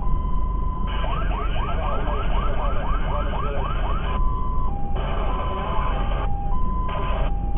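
Fire engine's own siren heard from inside the cab while driving. It sounds the two-tone hi-lo, switches about a second in to a fast yelp of rising sweeps, nearly four a second, and returns to the two-tone near the middle. A steady low engine and road rumble runs underneath.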